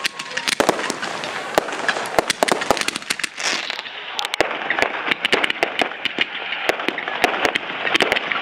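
Fireworks display: a dense run of sharp bangs and pops from bursting shells and rising comets, several a second, over continuous crackling.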